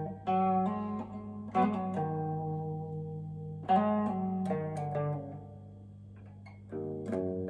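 Electric guitar with Parson Street 'Golden Age' humbucking pickups, played through an amp: chords picked and left to ring, struck again about four times, with a steady low hum underneath.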